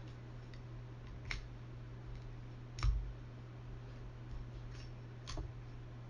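Metal parts of an AR-15 bolt carrier group clicking and clinking as they are handled and fitted together during reassembly: three sharp clicks, the loudest about three seconds in, with a few fainter taps, over a steady low hum.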